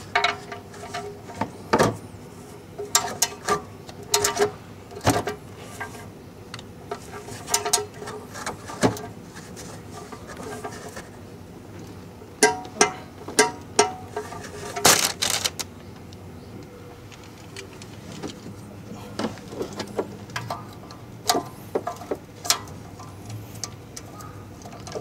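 A torque wrench ratcheting and clinking as the oil pan drain bolt is tightened: clusters of sharp metallic clicks with a short ring, busiest in the first half and sparser near the end.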